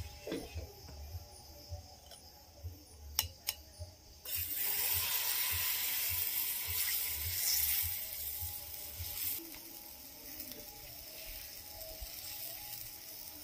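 Sizzling on a hot tawa, as oil and gram-flour batter meet the heated pan. It starts suddenly about four seconds in, is loudest for about five seconds, then settles to a quieter steady sizzle; two sharp knocks come just before it starts.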